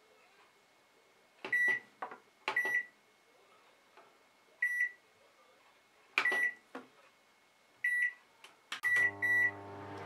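Morphy Richards Accents microwave control panel beeping, one short high beep per button press or dial click, seven times, with two quick beeps near the end. Just before the end the oven starts running with a steady low hum as it begins cooking.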